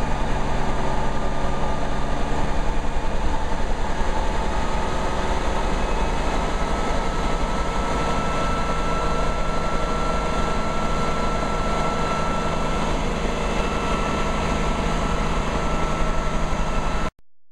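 Bell 47G4A helicopter's piston engine and main rotor running steadily at operating RPM, heard from inside the cockpit. The sound cuts off abruptly near the end.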